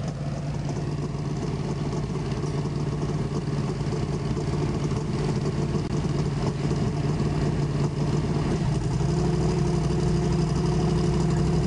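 Turbocharged drag-racing door car's engine idling, a steady low note that grows slowly louder and steps up about two-thirds of the way through.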